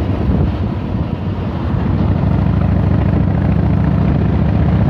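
Motorcycle engine running at road speed. It eases briefly about a second in, then holds steady.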